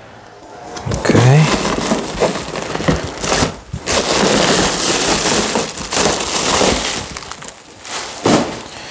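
Silver plastic packing wrap crinkling and rustling loudly as it is grabbed and pulled out of a cardboard box, with a brief pause about three and a half seconds in.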